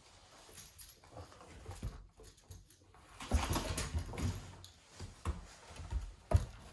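Labrador puppy scuffling about on a wooden floor and nosing at her toys: irregular paw steps, knocks and rustles. These are busiest around the middle, with one sharp knock near the end.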